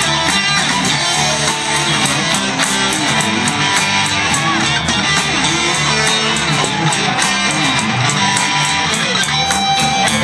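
Live rock band playing: strummed guitars over bass guitar and drums.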